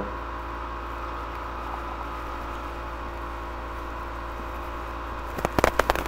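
Steady electrical hum and hiss on the recording. About five and a half seconds in comes a quick run of sharp computer keyboard key clicks as a date is typed in.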